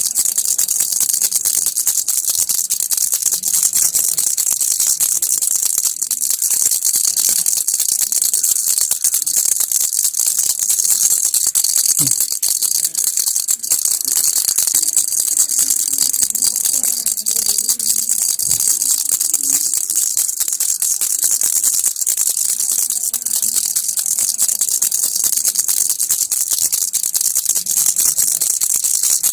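Baby rattle (kilukki) shaken without pause: a fast, steady, bright rattling of small beads inside the toy.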